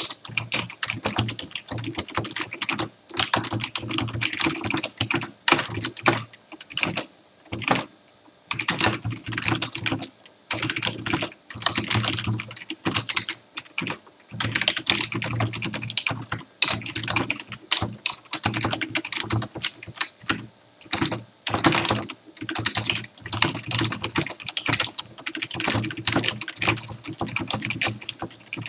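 Computer keyboard being typed on in fast runs of key clicks, with short pauses between bursts.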